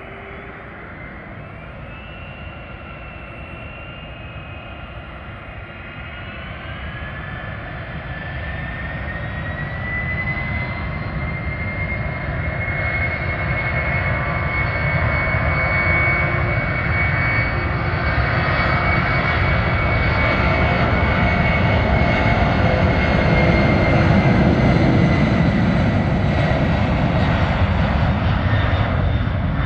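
Boeing 767-200 freighter's twin turbofan engines spooling up to takeoff thrust: a jet whine rises in pitch about six seconds in, then holds high. A deep roar grows steadily louder through the takeoff roll, loudest near the end as the jet rotates.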